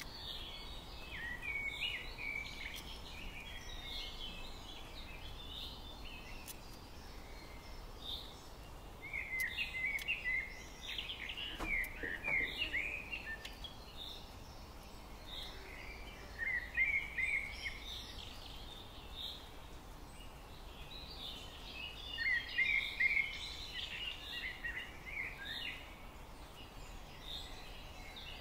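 Forest ambience: songbirds singing short twittering phrases in bouts every few seconds over a steady, low background hiss.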